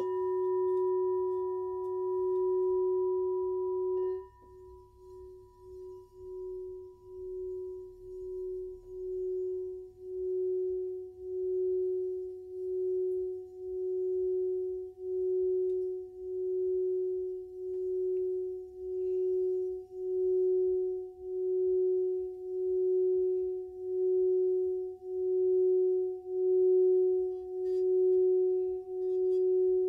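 Gold crystal singing bowl struck once, ringing a clear tone with fainter overtones above it. About four seconds in, the striker is drawn around the rim and the tone sings on, wavering in regular swells about once a second and building steadily louder.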